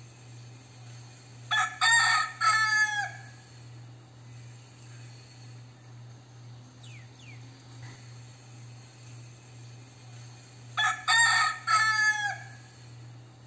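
Crossbred gamecock rooster crowing twice, about nine seconds apart: each crow is a short first note followed by longer held notes that end in a falling drawl.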